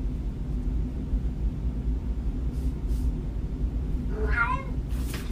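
A domestic cat meows once, about four seconds in, over a steady low rumble.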